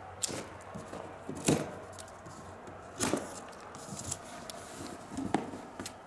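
A large cardboard box being unstrapped and opened: a few sharp snaps and rustling scrapes as the plastic packing straps come off and the cardboard flaps are handled. The loudest snap comes about a second and a half in, another at about three seconds.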